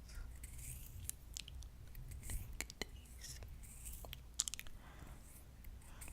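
Close-miked fingernails scratching a palm in a run of sharp, crackly clicks, loudest about four and a half seconds in, over soft heavy breathing.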